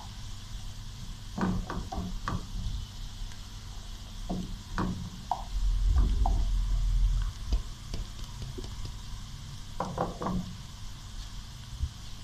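Chopped onions sizzling in hot oil in a non-stick frying pan as they fry to brown, stirred with a wooden spatula that knocks against the pan in short clusters. There is a louder low rumble about six seconds in.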